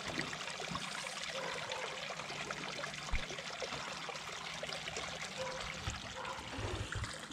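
Water pouring from a pipe into a small garden pond, a steady trickle and splash. A few soft low bumps come partway through and near the end.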